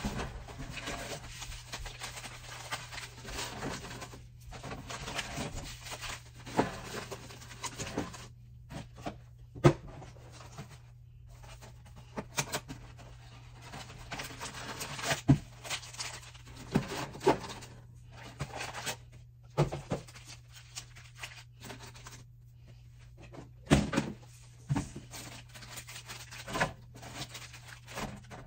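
Packaging rustling as cardboard boxes and snack packets are handled, with scattered sharp knocks and clacks as items are set into clear plastic bins on wire shelving. A steady low hum runs underneath.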